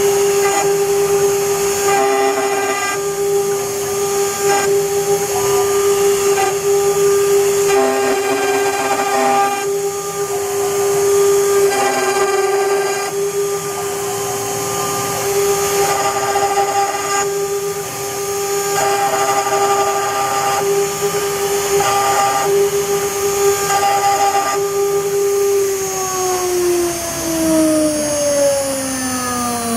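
CNC router spindle whining at a steady pitch while the bit engraves copper, with a harsher cutting sound coming and going in stretches of a second or two. Near the end the spindle winds down, its pitch falling steadily.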